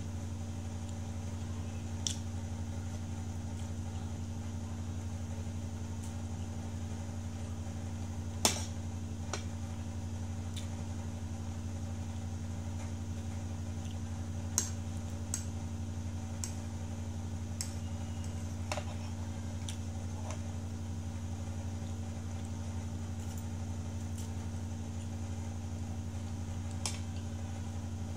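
A fork now and then clicking and scraping against a ceramic plate of noodles, a few scattered light clinks with the sharpest about eight seconds in, over a steady low hum of a room appliance.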